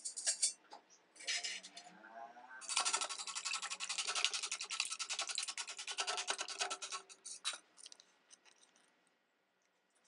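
Wire whisk beating three eggs in a stainless steel bowl: rapid, even scraping strokes of the wires against the metal for about four seconds, slowing and stopping near the end. A few short knocks come before the whisking starts.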